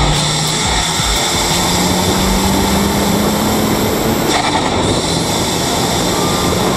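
Turbocharged car driving at highway speed, picked up by an outside-mounted camera near the road with strong wind and tyre noise. The engine note climbs slowly, breaks off about four seconds in, and comes back at a lower pitch.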